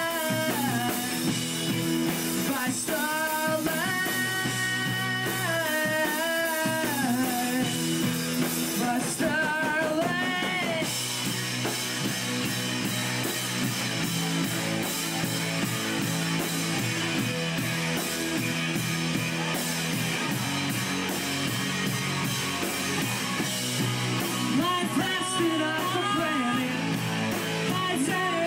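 Live rock band playing: electric guitar, bass and drum kit, with a sliding lead melody over the chords for the first ten seconds or so, then the full band carrying on with a steady beat.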